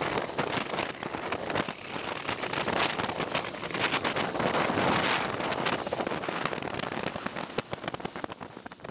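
Wind buffeting the microphone on the deck of a sailboat, a steady rushing full of constant crackle.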